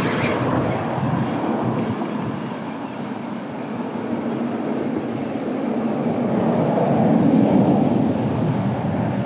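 Wind buffeting the microphone as a steady low rumble, swelling louder near the end.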